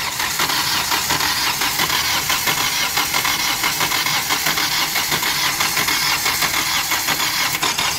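Starter motor cranking a Hyundai Verna diesel engine that does not fire, a steady churning with an even rhythmic pulse. The cranking pushes diesel through the fuel lines to bleed air from the fuel system after an engine rebuild.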